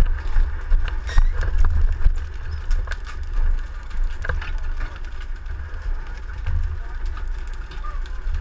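Fire truck engine running steadily, with short knocks and clatter as rolled hoses and metal couplings are pulled from a side compartment.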